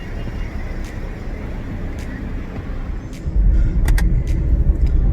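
Car traffic noise: a steady low rumble that grows much louder about three and a half seconds in, with a few sharp clicks near the four-second mark.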